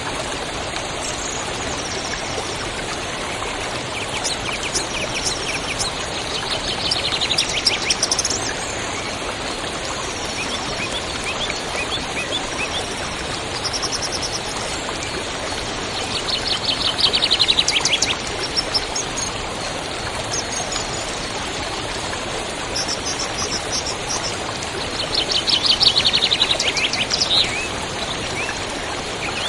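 Waterfall's water rushing steadily, with songbirds singing over it: a fast trilled phrase comes three times, about nine seconds apart, among scattered high chirps.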